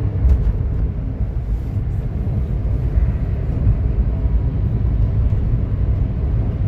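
Road and engine noise inside a moving car's cabin: a steady low rumble of tyres and engine at cruising speed.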